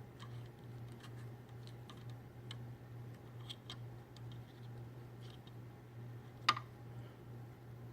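Faint, scattered small clicks and ticks from a small computer cooling fan being turned and pressed by hand to work freshly applied oil into its bearing, with one sharper click about six and a half seconds in, over a steady low hum.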